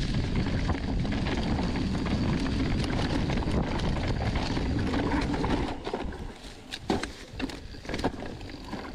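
A mountain bike descending a dirt trail at speed, with wind rushing over the microphone. After about five and a half seconds the rushing eases off, and a few sharp clicks and knocks stand out.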